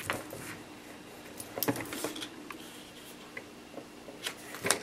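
Cardstock being slid and lined up on a paper trimmer: soft paper rustling with a few light clicks and taps against the trimmer, the loudest near the end.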